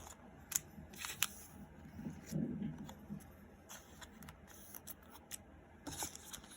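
Pokémon card packaging being handled: scattered sharp clicks and rustles of plastic and cardboard, with a brief low murmur about two and a half seconds in.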